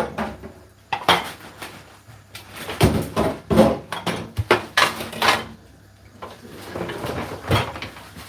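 Kitchen clatter: a quick series of knocks and rattles of dishes and pans, with doors being opened and shut.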